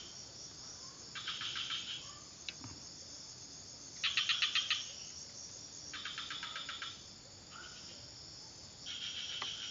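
Insects chirping in four separate trills of fast, even pulses, each about a second long, with quiet outdoor background between them.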